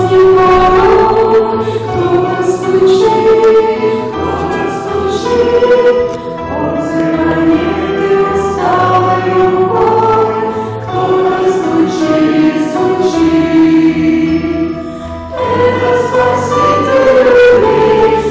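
A choir singing a slow Russian Christian hymn in long held notes.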